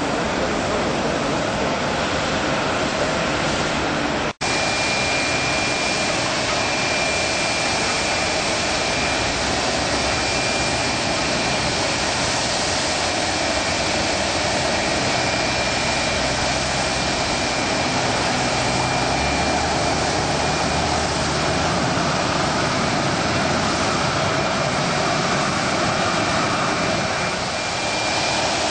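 Boeing 757's jet engines running after pushback, a steady rushing noise with a thin high whine from about five seconds in. The sound cuts out for an instant about four seconds in.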